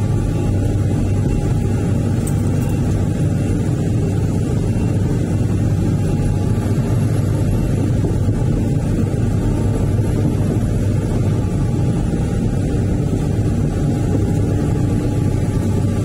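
Excavator's diesel engine running steadily, heard from inside the operator's cab.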